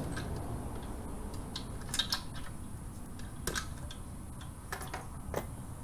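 A socket and hand tools clinking against a motorcycle's exhaust clamp and bolt as the clamp is loosened off: a handful of sharp, irregular metal clicks over a low rumble of handling.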